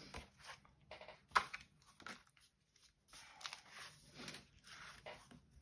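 Cardstock and patterned paper album pages rustling and sliding as they are lifted and turned by hand, with a sharp tap about a second and a half in.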